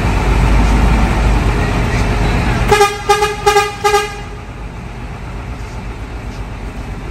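Bus horn sounding four short toots about three seconds in, over the low rumble of a Hino AK8 bus heard from inside. The rumble drops to a softer level after the toots.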